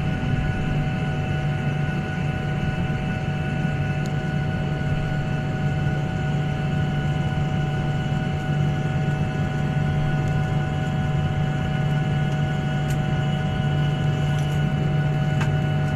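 Steady cabin noise of an airliner's jet engines running while the aircraft taxis: an even low hum with a constant whine above it.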